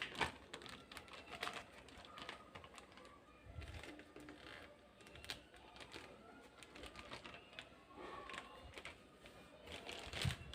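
Faint, irregular clicks and light taps of kitchen items being handled, a little louder near the start and again near the end.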